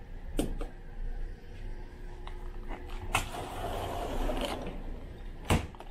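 A wall light switch clicks about half a second in. Later a cabin door moves with a creak and its latch clicks shut near the end. A steady low hum of the ferry's engines runs underneath.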